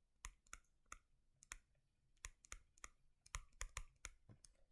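Faint, irregular clicking from computer input: about a dozen short, sharp clicks spaced unevenly.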